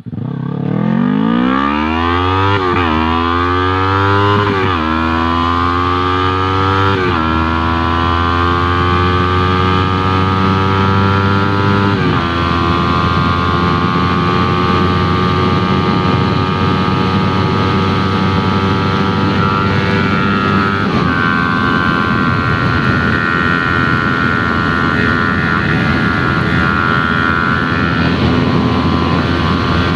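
Yamaha R3's 321 cc parallel-twin engine through an aftermarket Arashi exhaust, accelerating hard and shifting up through the gears: the pitch climbs and drops back with each of four upshifts over the first twelve seconds, then holds a steady high cruise.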